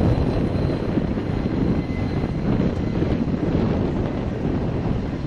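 Steady jet engine noise from a Thunderbirds F-16 fighter on the runway, mixed with wind buffeting the microphone.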